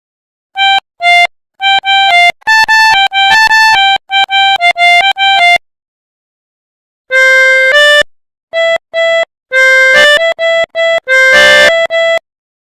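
Pianika (melodica) playing the Basuri telolet bus-horn tune in short, clipped notes. There is a quick phrase of repeated notes, a pause of about a second and a half, then a second phrase built around lower notes.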